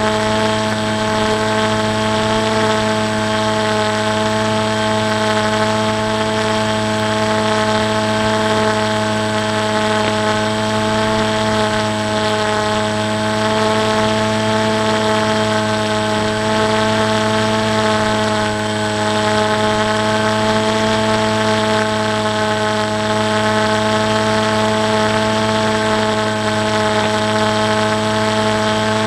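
Electric motor and pusher propeller of a foam RC flying wing, heard close up from the onboard camera, running at a steady pitch at constant cruise throttle.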